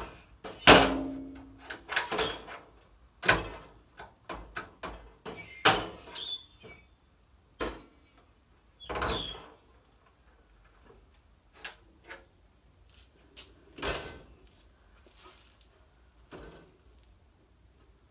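Steel drawers of a US General rolling tool cart slid open and shut on their ball-bearing slides: a run of sharp metal clunks and rattles, the loudest about a second in, coming thick and fast for the first half and more sparsely after.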